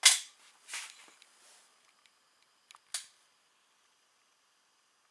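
Sharp mechanical clacks from a Slavia 630 break-barrel air rifle being handled and readied to fire: two clacks in the first second and a short, lighter click about three seconds in.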